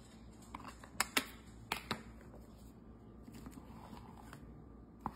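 Light plastic clicks from a whipped-topping tub being opened and handled, several sharp ones about a second in and another near the end, with a silicone spatula softly scraping the topping out into a glass bowl.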